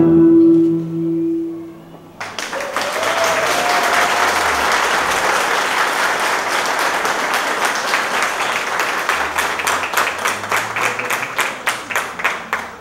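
Music ends on a held note, then an audience applauds for about ten seconds. The applause thins into scattered separate claps near the end.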